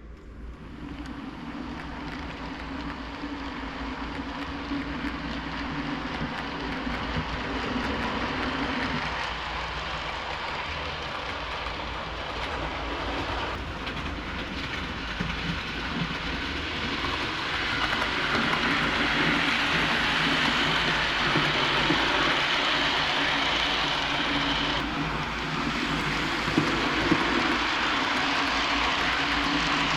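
OO gauge model train, an Accurascale Class 37/4 diesel hauling Hornby coaches, running along the layout track with a steady hum and rolling rattle, growing louder over the first twenty seconds or so as it comes closer.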